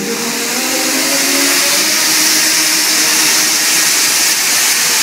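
Steam hissing loudly and steadily from the open cylinder drain cocks of LNER K4 2-6-0 steam locomotive 61994. The hiss builds in the first second while a few low tones fade out.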